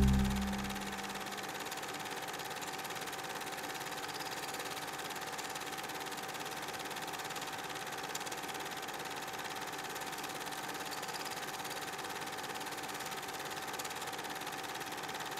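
Music fading out within the first second, then a steady, even hiss with a faint constant hum-like tone: the background noise of an archival footage transfer with no live sound.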